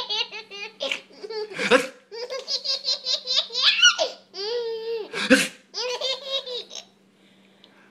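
A baby laughing hard in runs of quick, high-pitched giggles that stop about seven seconds in. Two short, loud bursts break in about two and five seconds in.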